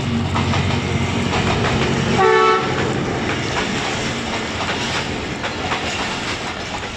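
ZCU-20 diesel-electric locomotive running through, giving a short horn blast about two seconds in, followed by the train's wheels clattering over the rail joints as it passes.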